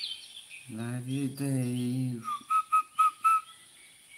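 Five short whistled notes at one steady pitch, evenly spaced over about a second and loud, coming after a man's voice.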